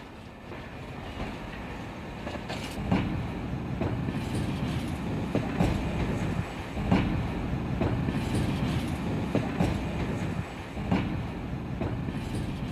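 A train running on rails: a steady rumble that builds over the first few seconds, with repeated clacks of the wheels over rail joints.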